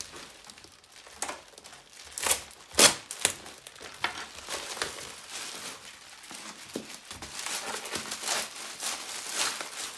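Bubble wrap and a plastic mailer bag being pulled apart and crumpled by hand: irregular crinkling and crackling, with a few sharper, louder crackles about two to three seconds in.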